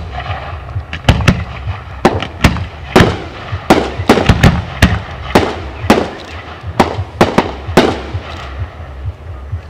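Aerial fireworks bursting in a rapid, irregular series of sharp bangs, about two a second, that thin out near the end, over a steady low rumble.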